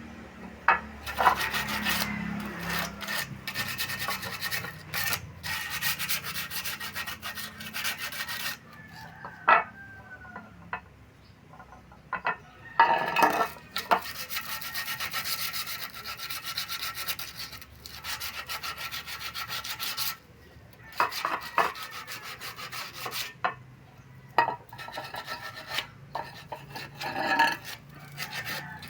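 Rough scraping or rasping on a hard surface in long stretches, with pauses between them and a few sharp knocks.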